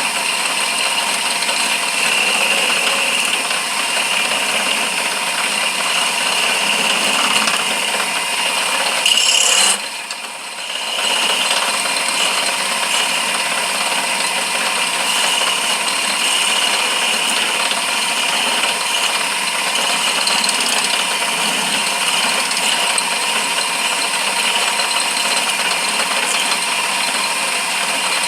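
Lathe running steadily with a hand-held turning tool cutting into the spinning workpiece; the noise dips briefly about ten seconds in.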